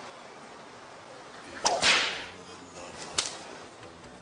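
A whip-crack swish sound effect: one sharp swish about two seconds in that fades over half a second, then a short crack about a second later.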